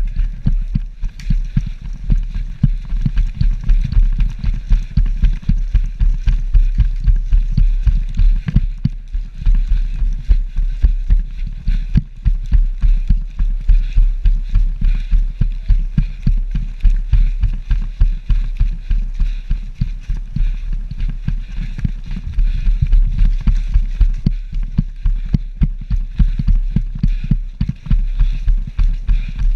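Footsteps and gear jolting a body-worn camera as a player runs: a steady run of heavy low thumps, about two to three a second.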